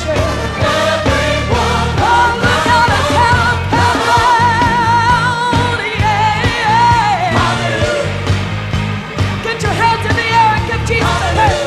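Live gospel song: a solo singer and choir singing over a band, with held notes wavering in vibrato above a steady bass and drums.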